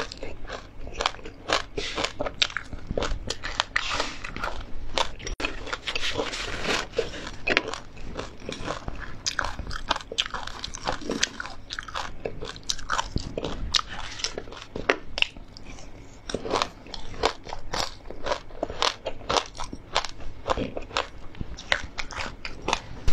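Close-up crunching and chewing of crispy oil-fried chilies and seeds: a dense, irregular run of sharp crackles as the dry fried food breaks between the teeth.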